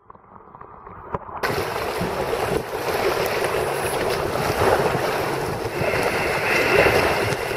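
Muffled water sound heard underwater. About a second and a half in it changes abruptly to loud rushing river water around an inflatable boat, with wind buffeting the microphone.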